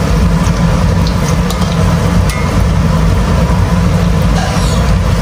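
Battered cempedak deep-frying in a wok of hot oil, the oil hissing steadily over a constant low rumble, with a few light taps and scrapes of a metal slotted spatula against the wok.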